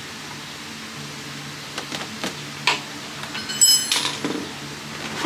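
Scattered clicks and taps of metal parts and hand tools during work on a scooter's front wheel and brake. A brief metallic ring comes about three and a half seconds in and ends in a louder click, over a steady low hum.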